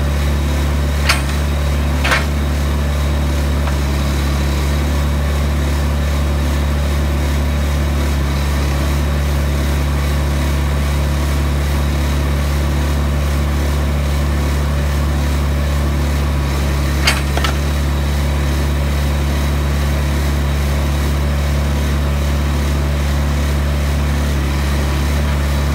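Vermeer D16x20 Series II horizontal directional drill's diesel engine running steadily with a deep hum. A few short sharp clicks come about one and two seconds in, and again near seventeen seconds.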